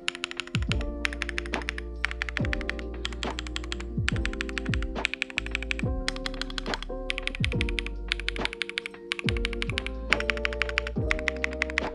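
Background electronic music with a steady beat, built from sustained notes, repeated falling bass notes and quick runs of rapid, evenly spaced clicking.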